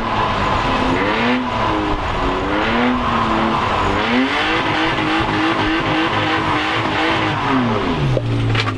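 BMW E36 drift car heard from inside the cabin, its engine revving up and down over and over under a steady hiss of tyre and road noise while it drifts on a wet track. Near the end the revs fall away and the engine settles into a low, steady note.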